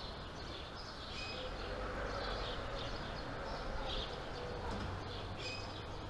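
Outdoor ambience: small birds chirping again and again over a steady low background rumble.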